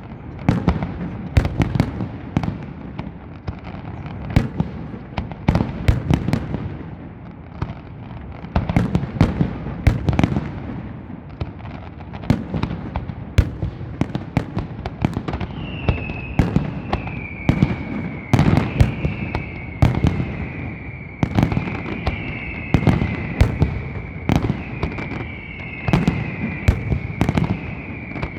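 Aerial fireworks display going off in a rapid, dense string of bangs. About halfway through, repeated falling whistles join the bangs.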